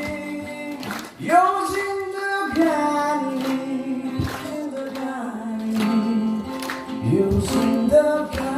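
A song: a female voice singing long held, sliding notes over instrumental music with a regular beat.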